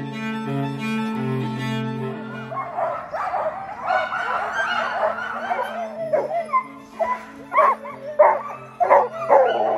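Cello music, then from about three seconds in a harnessed sled-dog team whining and yipping, with sharp barks near the end while the music goes on underneath.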